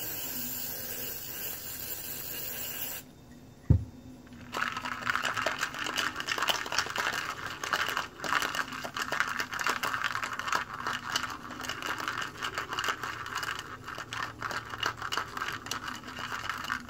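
Aerosol can of WD-40 spraying in a steady hiss for about three seconds, then cutting off. One knock follows, then small metal transmission gears and parts rattle and scrape in a cup as they are swished around to clean them.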